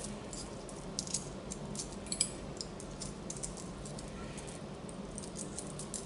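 Small metal hanging chains clinking and jingling as they are lifted and handled by hand, a run of quiet, scattered light clinks.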